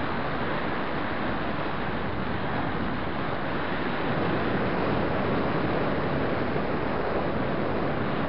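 Steady rush of wind over the microphone of a camera riding on a moving road bike, an even noise without breaks.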